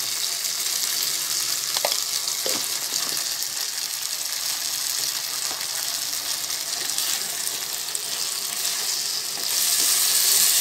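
Fried potato pieces sizzling in a pan of soy and tomato sauce, stirred with a wooden spatula that gives a few faint scrapes and taps. The sizzle grows louder near the end.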